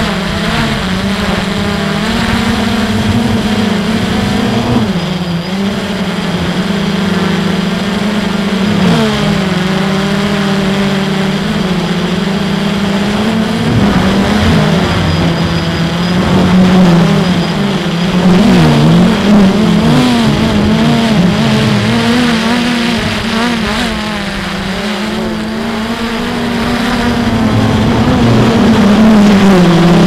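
A small drone's electric motors and propellers whining in flight, their pitch wavering up and down as the throttle changes, over a hiss of rushing air.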